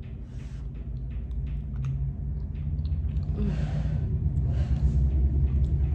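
A woman chewing a mouthful of food, with small ticks, and breathing out heavily twice about three and a half and four and a half seconds in, over a low rumble that grows louder.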